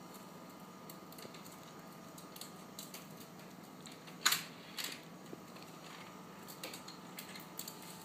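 Small scattered clicks and taps of a bird working the pieces of a puzzle toy, with a louder short scraping rattle about four seconds in and a smaller one half a second later.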